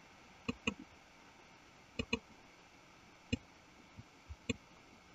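Faint, scattered clicks of a computer mouse and keyboard, about eight in all, some in quick pairs.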